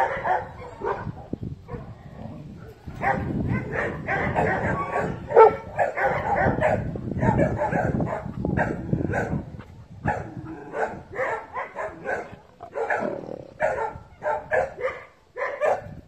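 Dogs barking repeatedly, in quick runs of short barks with brief pauses between.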